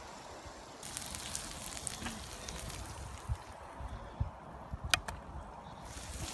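Sausages sizzling on a portable grill, a steady frying hiss that drops away for a couple of seconds in the middle and comes back near the end. There is one sharp click about five seconds in.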